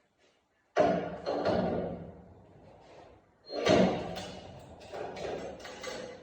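Metal clunks and creaking from a Mk1 Caddy body shell being turned over on a rotisserie: two loud clanks, about a second in and again at three and a half seconds, each ringing on and dying away, with smaller knocks between.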